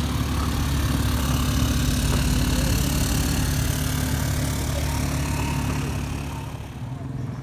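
Vehicle engines running steadily: a low engine drone with a wash of noise over it, easing off slightly near the end.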